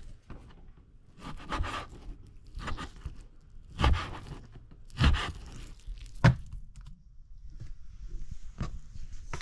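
Chef's knife slicing through raw pork and knocking on a wooden cutting board, a cut about every second, several landing with a dull thump. A brief rustle near the end.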